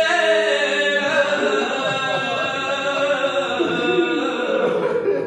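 A man chanting a Pashto rubai, a Muharram mourning quatrain, solo into a microphone. His voice sustains long, wavering melodic notes that slide between pitches, with a brief break near the end.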